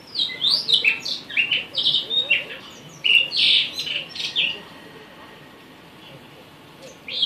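Blue rock thrush singing: quick warbling whistled phrases for about four and a half seconds, then a pause, with a new phrase beginning right at the end.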